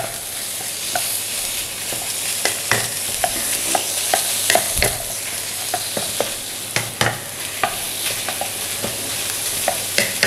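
Beef strips, scrambled egg and sliced green chilli sizzling in hot coconut oil in a nonstick wok as the beef is cooked through, with a steady hiss. A wooden spatula stirs and knocks against the pan in quick, irregular strokes.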